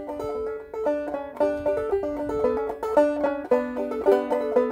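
Solo banjo played by hand: a steady run of quick plucked notes, several to the second, with no singing.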